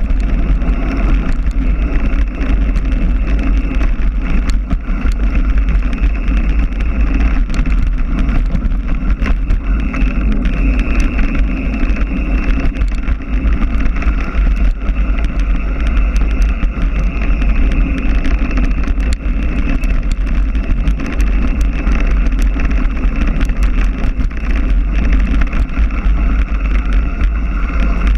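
A mountain bike rattling down a rough trail, with frequent small clicks and knocks from the bike over the terrain, under a steady low rumble of wind buffeting the microphone.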